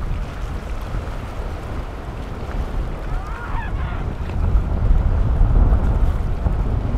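Yamaha outboard of a center-console boat running through choppy inlet water, with the rush of waves and wind rumbling on the microphone; the rumble swells louder about two-thirds of the way in. A short, high, wavering call sounds about halfway through.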